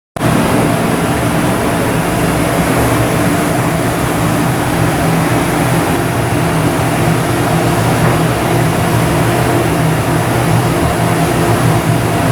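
Ship's diesel engine running steadily and loudly, a low hum with a layered drone over a constant mechanical hiss.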